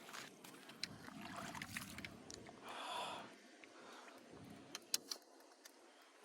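Faint scattered clicks, with a short rustle about three seconds in and two sharper clicks near five seconds.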